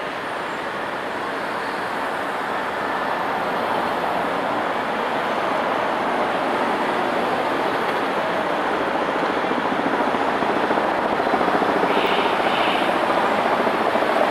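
City street traffic: a steady wash of car and tyre noise from vehicles driving through an intersection, growing gradually louder toward the end as cars pass close by.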